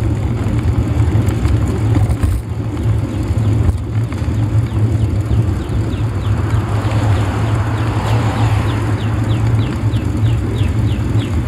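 Wind buffeting the microphone of a bike-mounted camera while riding, with tyre and road noise: a steady low rumble. About halfway through, a quick series of short, high falling chirps starts and speeds up toward the end.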